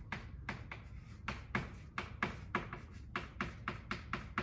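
Chalk writing on a blackboard: a quick, irregular run of sharp taps and short scratchy strokes as characters are written.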